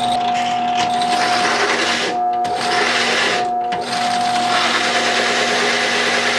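A 1/3-horsepower Harbor Freight benchtop drill press running with a Milwaukee 1-3/8-inch Ice Hardened hole saw cutting through quarter-inch steel plate: a steady motor hum under the gritty grinding of the saw teeth on the steel. The grinding drops out briefly twice, about two and three and a half seconds in.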